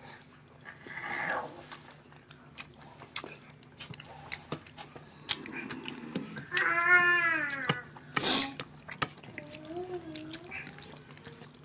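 Eating by hand from steel thali plates: small clicks, scrapes and smacks of fingers, food and mouths. About seven seconds in, one drawn-out call that rises and then falls in pitch, followed by a sharp smack; a fainter wavering pitched sound comes near the end.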